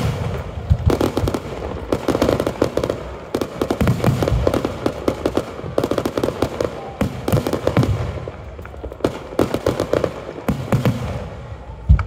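Aerial fireworks display: a continuous barrage of shell bursts and crackling, with rapid overlapping bangs throughout and a heavy volley of booms near the end.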